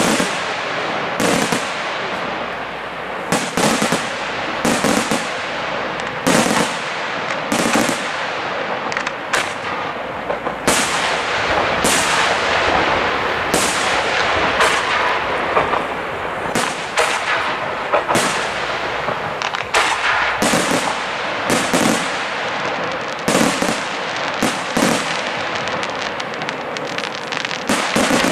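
Aerial firework shells bursting one after another, roughly one sharp bang a second, with dense noise between the bangs so the sound never falls quiet.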